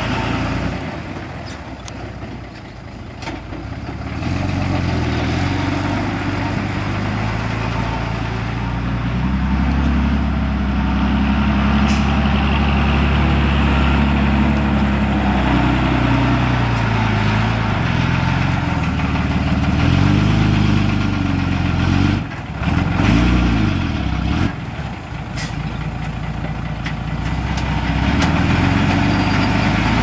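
Heavy earthmoving machine's engine running and revving up and down under load, its pitch rising and falling repeatedly, with a few quick revs about two-thirds of the way through.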